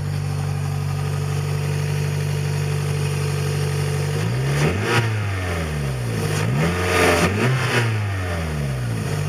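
2005 Scion xB's 1.5-litre four-cylinder engine idling through a freshly installed full exhaust system. It is revved twice, about four and six seconds in, and each rev rises and falls back to idle. No leak remains at the engine end of the exhaust.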